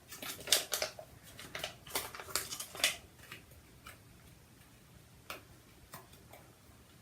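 Scattered light clicks and taps of plastic hair-dye bottles and packaging being handled, most of them in the first three seconds and only a few after.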